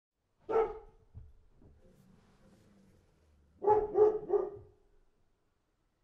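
Dog barking: one bark, then a quick run of three barks about three seconds later.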